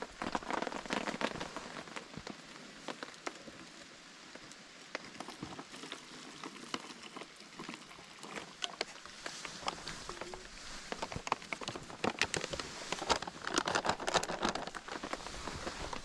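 Rain falling, with many irregular drips ticking; the ticks grow busier a few seconds before the end.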